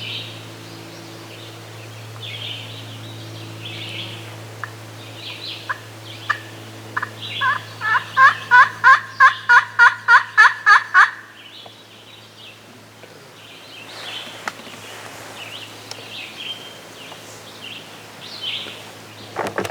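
Turkey yelping: a run of about a dozen sharp, evenly spaced notes, roughly three a second, growing louder and then stopping abruptly, with a few single notes just before. Small birds chirp faintly throughout.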